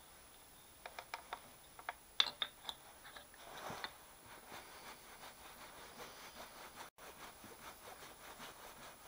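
A few sharp metal clicks and a short scrape as a load cell is set down between the jaws of a milling vise, followed by faint irregular ticks.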